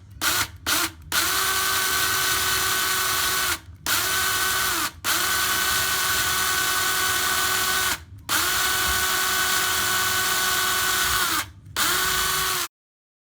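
Electric drill with a 1/8-inch bit drilling a hole in a wooden cabinet door: a few short trigger taps, then the motor runs in long steady stretches with four brief pauses, cutting off abruptly near the end.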